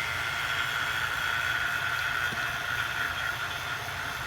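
Oil-sealed vacuum pump running steadily, a hiss with a steady whine over a low hum, as it pulls a vacuum on a jar of water.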